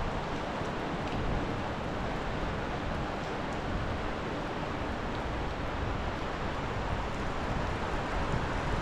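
Steady rushing of the Schuylkill River in flood, swollen well above its normal level, with a little low wind rumble on the microphone.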